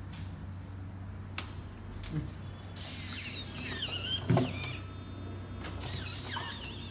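Robotic toy dog making high, warbling electronic chirps and squeaks, in two runs about three seconds in and again near the end, with a low knock just after the first run.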